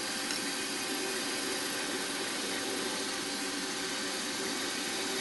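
Milling machine spindle running steadily as a 2.5 mm tapping drill bores an M3 tapping hole in a metal block, an even motor hum with hiss.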